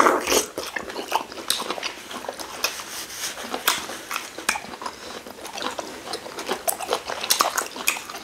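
Close-up wet eating sounds of a meal of fufu and ogbono soup eaten by hand: many short lip smacks, sticky chewing and finger sucking, with a louder smack or slurp at the very start.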